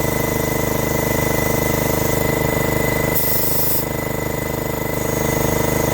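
Air compressor running steadily during tire inflation, with a short burst of hissing air a little over three seconds in.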